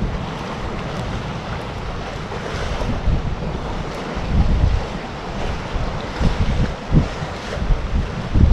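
Wind blowing over the microphone: a steady rushing noise with a low rumble that swells and drops in irregular gusts.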